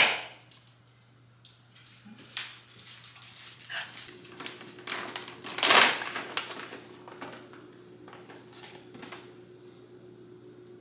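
A sharp click at the start, then small scattered taps and clicks, and a crinkly plastic bag of dog treats rustling for about half a second a little past the middle, the loudest sound. A faint steady hum runs under the second half.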